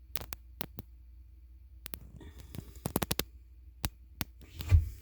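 Scattered sharp clicks and knocks, with a quick run of rattling taps about three seconds in and one heavy, low thud near the end.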